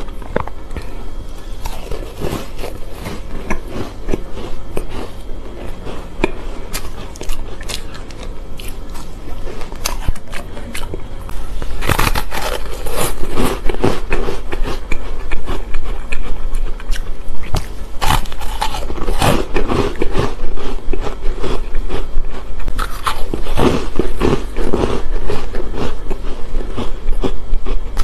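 Close-miked crunching and chewing of matcha shaved ice, a run of sharp, crackly crunches. From about twelve seconds in the crunching and crackling grow louder and denser.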